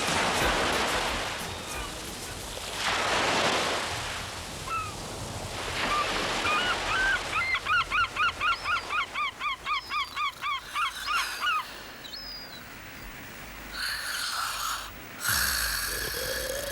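Cartoon sound effects: swells of rushing noise, then a fast run of short honking calls, about three or four a second, lasting some four seconds around the middle.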